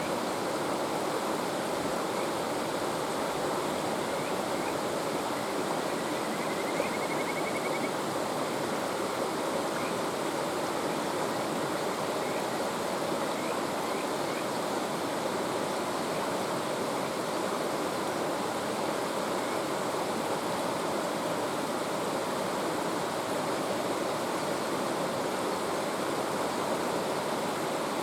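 Mountain stream rushing steadily, with faint high calls of a kajika frog (Buergeria buergeri) a few times in the first half, one drawn out into a quick trill of about two seconds.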